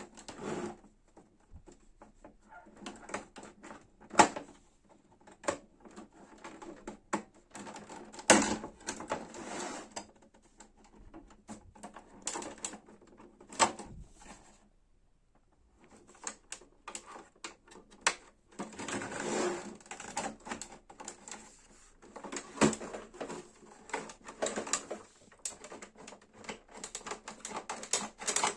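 Irregular clicking, knocking and rattling of a Brother inkjet printer's plastic parts and mechanism, in short bursts with a few sharp knocks.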